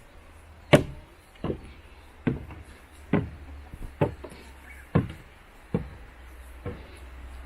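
A steady series of sharp knocks, eight in all, a little more than one a second.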